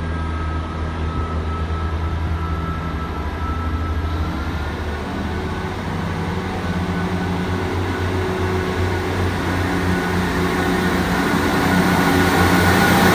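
Class 158 diesel multiple unit's engines running and then revving up as the train pulls away. A high whine rises in pitch, the engine note steps up about four seconds in, and the sound grows louder toward the end.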